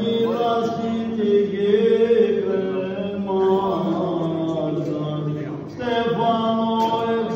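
Greek Orthodox Byzantine chant: a slow melody sung in long held notes over a steady drone (the ison), with a brief break for breath near the end.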